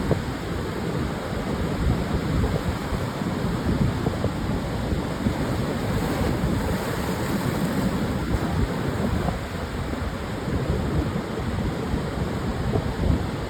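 Pacific surf breaking on a long sandy beach, with gusting wind rumbling on the microphone.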